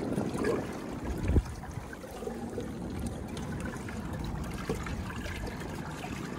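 Water trickling and lapping along the hull of a pedal-driven fishing kayak under way, with a single low knock about a second and a half in.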